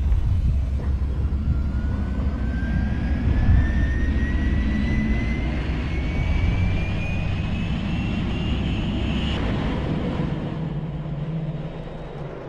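Jet aircraft engine spooling up as if for takeoff: a heavy low rumble under a whine that rises steadily in pitch for about eight seconds, then eases off near the end.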